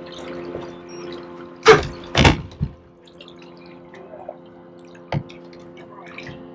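Water splashing loudly twice in quick succession about two seconds in, over a steady hum from the boat's motor. A single sharp knock comes about five seconds in.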